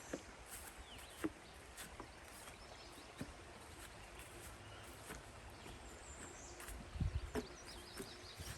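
Footsteps crunching and thudding along a dirt trail in an uneven walking rhythm, heaviest about seven seconds in, with a few short bird chirps.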